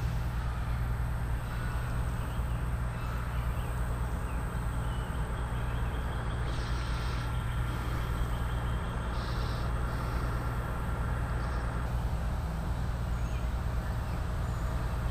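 Steady low rumble of outdoor background noise, with faint high chirps here and there.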